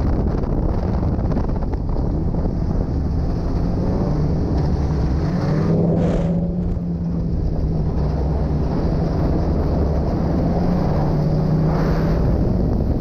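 Racing snowmobile engine running steadily under throttle, with wind buffeting the helmet-mounted camera's microphone. The engine note drops briefly about six to seven seconds in as the sled slows for a turn, then picks up again.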